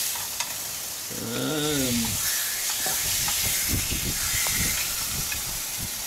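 Hot fat sizzling steadily in a frying pan on a gas burner, with a few light clicks.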